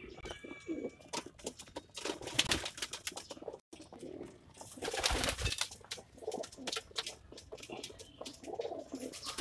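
A flock of racing pigeons cooing, with a rapid scatter of sharp taps from beaks pecking grain off the loft's grated floor.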